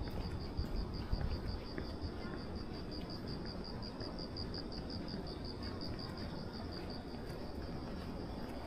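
Cricket chirping in a fast, even train of high-pitched pulses, over a low background rumble.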